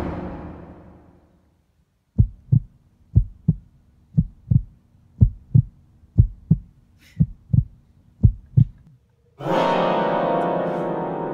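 Suspense soundtrack: a loud chord fades out, then a heartbeat sound effect of seven lub-dub double thumps, about one a second, over a faint low hum. A loud sustained chord comes in about nine and a half seconds in.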